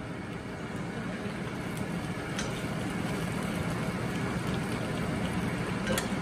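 Potato fries sizzling in hot oil while being turned with a metal slotted spoon and tongs; the sizzle grows slightly louder, with a few light clicks of metal utensils against the pan.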